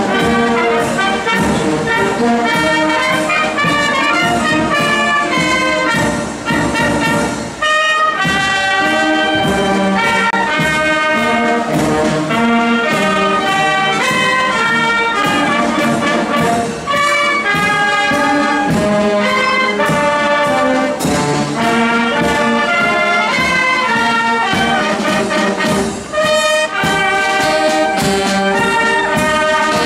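Marching wind band playing a march on the move: trumpets, clarinets, saxophones and euphonium carrying the tune over steady snare and bass drum beats, with a short break about eight seconds in.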